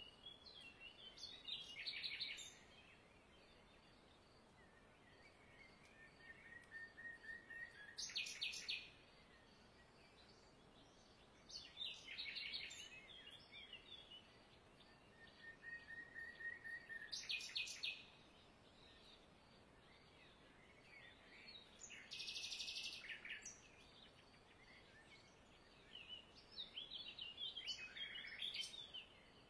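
Birds singing: short phrases of high chirps and quick trills, six of them, spaced about four to five seconds apart, over a faint steady background hiss.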